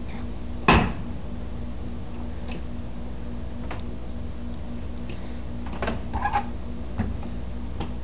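Knocks and light rattles of a dishwasher's wire rack and plastic dishes being handled, with one sharp knock about a second in and a few quieter clicks later, over a steady low hum.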